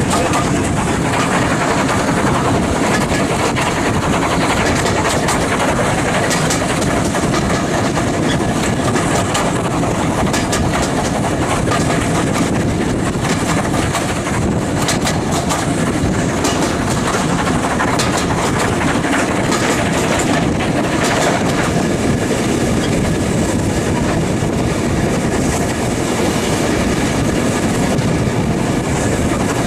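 Steam-hauled heritage passenger train running along the line, heard from a carriage window: a steady rumble of wheels on rails, with occasional clicks.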